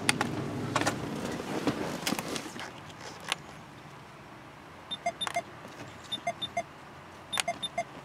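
Laptop keyboard keys pressed with a gloved finger: several quick clicks a little past the middle and another cluster near the end. Before that there is a low steady hum with a few knocks, which fades out about three seconds in.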